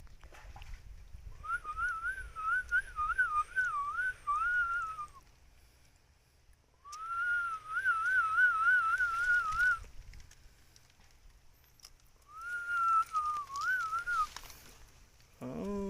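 A high, warbling whistle, played as a call that eels are said to like, in three trilled phrases with short pauses between them. A short sound falling in pitch comes at the very end.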